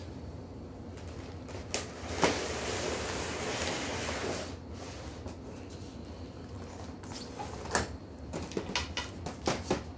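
Cardboard packaging and plastic tray of a boxed train set being slid out of the box: a knock about two seconds in, then about two seconds of scraping and rustling, then a run of light clicks and taps near the end.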